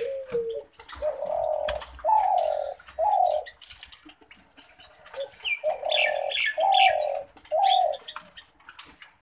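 Male Eurasian collared dove of the tangerine colour form cooing: a three-note coo phrase, repeated once a few seconds later. Higher chirping can be heard alongside the second phrase.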